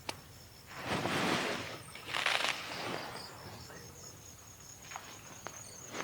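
Two rustling swishes about one and two seconds in, with a few light clicks later, from someone moving about or handling things, over a faint steady chirping of insects.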